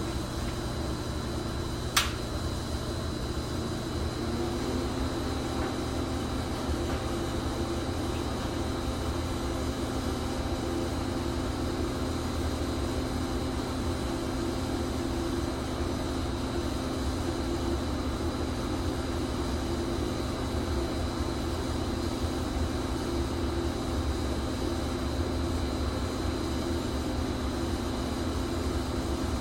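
Electric pipe-thawing machine humming steadily while it pushes current through a frozen pipe, with a thin high whine over the hum. There is a single sharp click about two seconds in, and the hum deepens a little a couple of seconds later.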